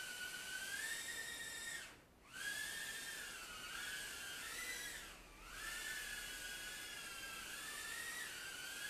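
Furibee F36 micro quadcopter's motors and propellers whining in flight, the pitch rising and falling with the throttle. The whine nearly cuts out about two seconds in and drops low then climbs back about five seconds in.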